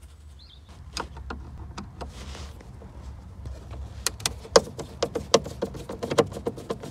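Hand screwdriver backing screws out of a car's plastic dashboard trim: scattered clicks and taps of the tool against the screw heads and plastic, becoming a quicker run of sharp clicks about four seconds in.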